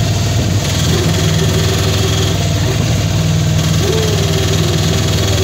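Auto-rickshaw (tuk-tuk) engine running with a steady low hum, heard from inside the cabin.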